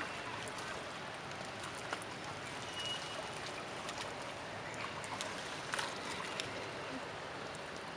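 Water splashing and sloshing as monkeys thrash and play in shallow muddy water, with scattered sharp splashes over a steady wash of water noise. The splashes bunch up near the end.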